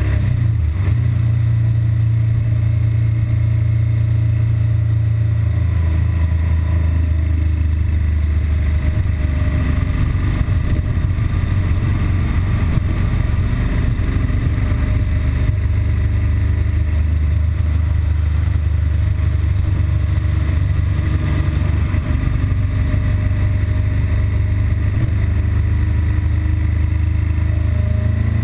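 BMW R1200GS Adventure's boxer-twin engine running steadily under way, still running normally before its intermittent stall and rough-idle fault sets in.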